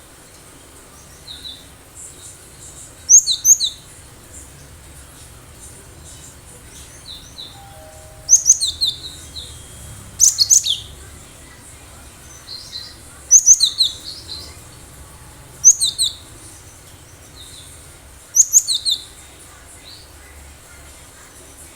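Cinereous tit (gelatik batu) singing wild song: six loud, short phrases of quick, high, repeated notes, two to three seconds apart, with a few fainter notes in the first seconds.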